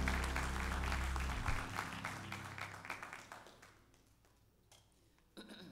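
A church congregation applauding at the end of a gospel song, the clapping thinning out and fading over about three seconds. The song's last low note rings under it and stops about a second and a half in. A short faint sound follows near the end.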